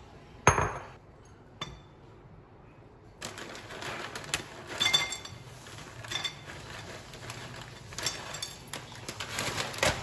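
A ceramic bowl set down with a sharp clack about half a second in, then a lighter clink. From about three seconds in, chocolate granola clusters poured from a plastic cereal bag into a bowl of yogurt and fruit: the bag crinkling and the crunchy clusters rattling as they fall.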